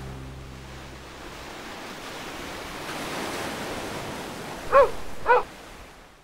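Sea surf washing on a beach, with a dog barking twice, about half a second apart, near the end; the barks are the loudest sounds. Background music fades out in the first second or so.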